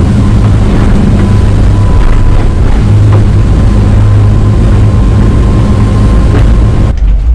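Motorboat running flat out at planing speed: a steady low engine drone under rushing water and wind buffeting the microphone. It cuts off abruptly just before the end.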